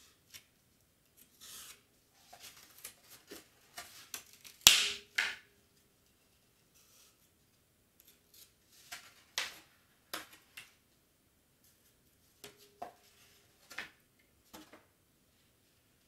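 A pen scratching as it traces around a board cut-out, and the board rubbing as it is shifted on a cutting mat, heard as scattered short scrapes. A sharp click and a louder scrape come about five seconds in.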